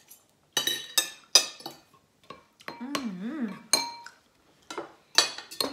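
Metal forks and spoons clinking and scraping on plates and a rice bowl as food is served, a series of sharp clinks that ring briefly.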